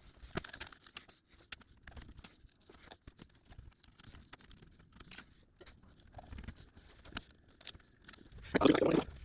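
Small scattered clicks, ticks and scraping of a part being fitted into a steel and plastic PC case and screws being driven in by hand with a screwdriver. A voice starts near the end.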